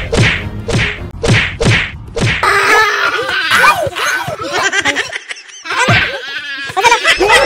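A quick run of about eight whacks of blows landing, about three a second, followed by a man crying out and wailing, with one more whack about six seconds in.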